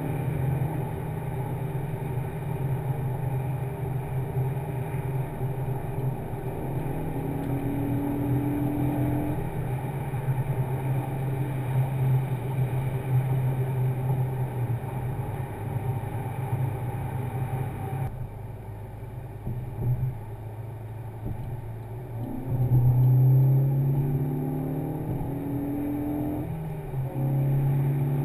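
In-cabin sound of a 2013 Ford Focus ST's turbocharged 2.0 EcoBoost four-cylinder breathing through an MRT Eco-Flow axle-back exhaust, with the Sound Symposer switched off, cruising at highway speed with a steady low engine drone. About two-thirds of the way through the sound suddenly goes duller and quieter. It then rises in pitch and loudness twice as the car pulls harder near the end.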